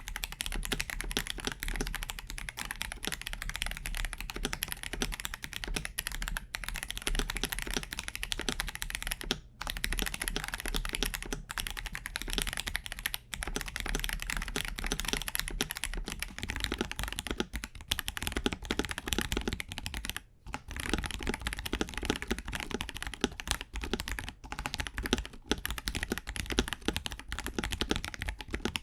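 Fast, continuous typing on a KBD67 Lite R3 mechanical keyboard fitted with Akko sponge tactile switches. The keystrokes come densely, with a few short pauses.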